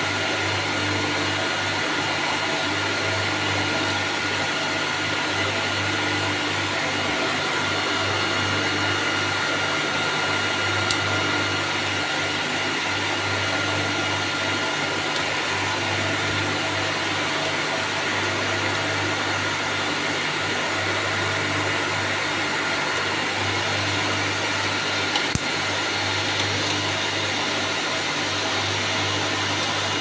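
Cooling fans of rack-mounted servers running with a steady whir and a constant high tone. Two brief clicks cut through, about eleven seconds in and again near twenty-five seconds.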